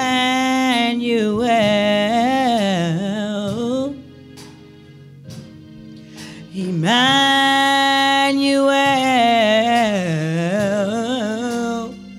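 A woman singing long, wordless vocal runs into a microphone, her pitch gliding and wavering up and down, over a steady sustained backing accompaniment. Two long phrases, with a short pause of accompaniment alone a third of the way through.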